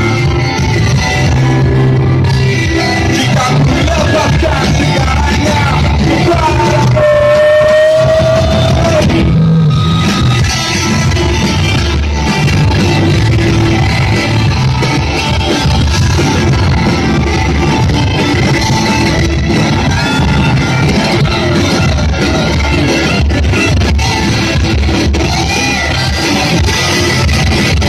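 Live rock band playing loudly in a large hall, heard from within the audience: electric guitars, drums and a singer, with a long held high note about seven seconds in.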